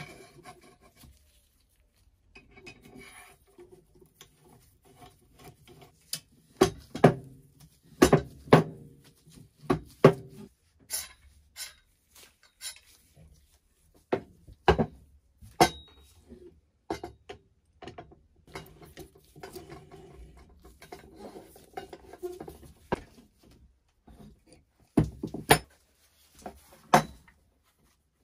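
Parts of a brass stirrup pump being handled and fitted together: scattered sharp metallic clinks and knocks with quieter rubbing and sliding between them. The loudest knocks come in groups about a quarter of the way in and again near the end.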